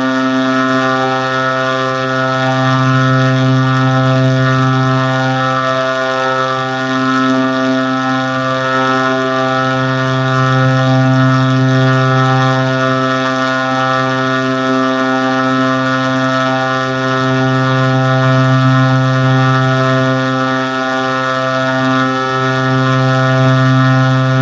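A steady, low droning tone rich in overtones, holding one pitch throughout and slowly swelling and easing in loudness every few seconds.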